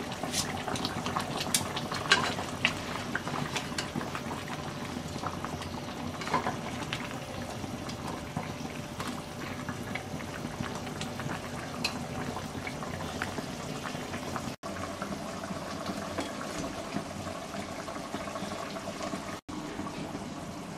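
Pot of spiced chicken broth bubbling steadily on the stove, with small scattered pops and clicks.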